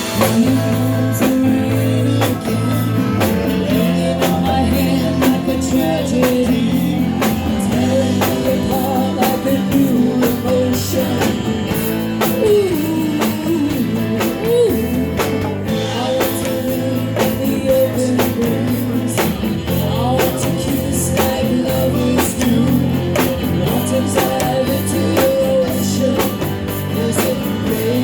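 Live rock band playing, with a woman singing lead over drum kit, bass and electric guitar.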